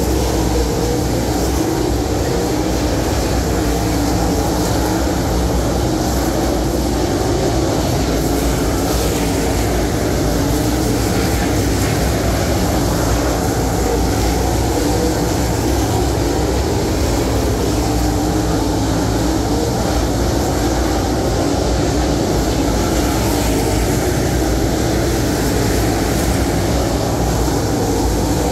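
A field of dirt late model race cars running at racing speed around a dirt oval, their V8 engines making a loud, steady din that holds without a break.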